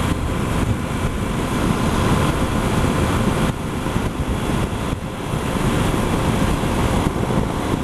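Steady wind rush over the microphone of a Yamaha Super Ténéré motorcycle riding at highway speed, with the bike's engine and tyre noise underneath.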